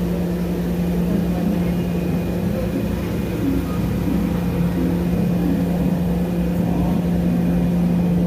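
Steady drone of a standing passenger train: an even engine or generator hum with a few overtones over a low rumble, unchanging throughout.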